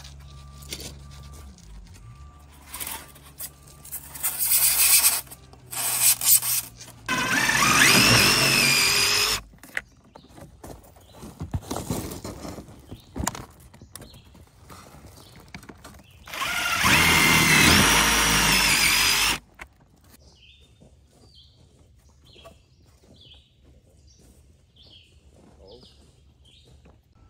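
A power drill runs twice, each run about three seconds long, its whine climbing and then holding steady. Between the runs come scattered clicks and knocks. Near the end it goes quiet apart from faint short chirps.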